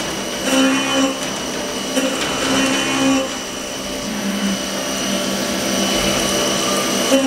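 HAAS TM-1 CNC mill cutting aluminum with an end mill under flood coolant: a steady high whine from the spindle over continuous cutting noise.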